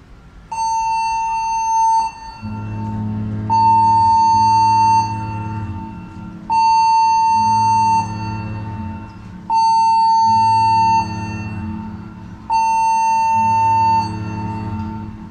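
Cruise ship's general emergency alarm sounding for a crew drill: a shrill electronic tone, on for about a second and a half and off for as long, repeating every three seconds. A deeper tone comes in about two seconds in and sounds mostly between the shrill pulses.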